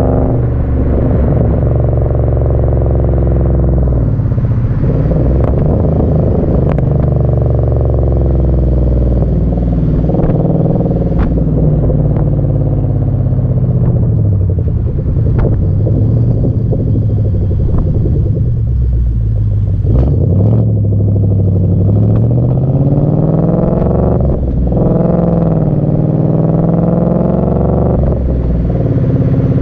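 2012 Ford Mustang GT's 5.0 Coyote V8 heard at the tip of its Flowmaster Outlaw axle-back exhaust while driving. The exhaust note climbs in pitch and drops back several times as the throttle is worked, with sudden drops a few seconds in and about two-thirds of the way through.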